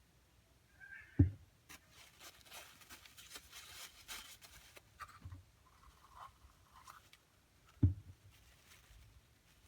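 Close handling noises of small objects on a tabletop: a dull thud about a second in and another near the end, with soft rubbing and scratching between them.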